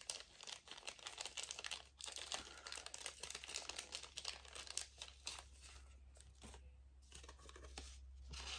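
Paper envelope being handled and torn open, a quick run of crinkling and tearing that dies down after about six seconds.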